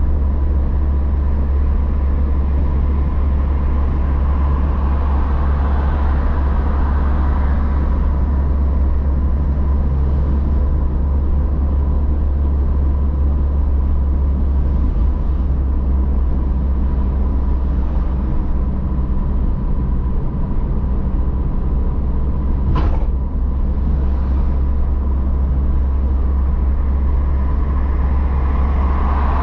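Car driving on an open road heard from inside the cabin: a steady deep rumble of engine and tyres, with a thin steady whine over it. A single sharp click about three-quarters of the way through.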